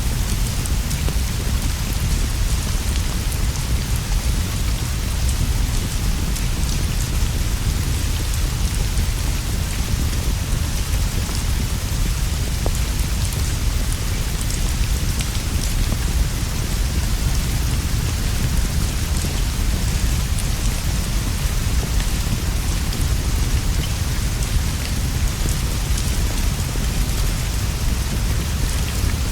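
Steady rain falling on leaves and a roof, an even hiss with a constant deep low rumble underneath and scattered faint ticks throughout.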